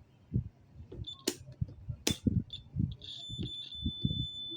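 Multimeter continuity beeper: a couple of brief high chirps and sharp probe clicks, then a steady high beep held from about three seconds in, signalling a low-resistance path between the probes. Low knocks of the probes and board being handled run underneath.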